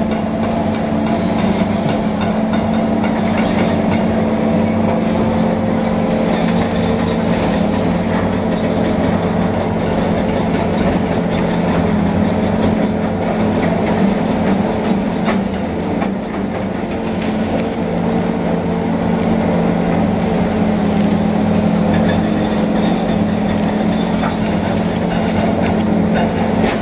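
Heavy construction machinery running at a demolition site: a steady diesel engine drone with frequent short metallic clanks and knocks over it.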